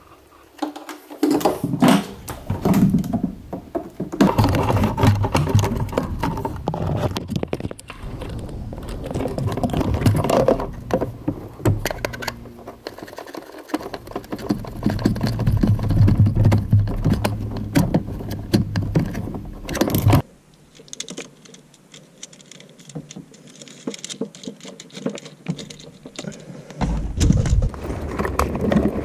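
Clicks, knocks and rustling from hands and a screwdriver working on wires, terminals and a plastic solar charge controller as it is wired in and mounted. The sound is irregular and changes abruptly twice.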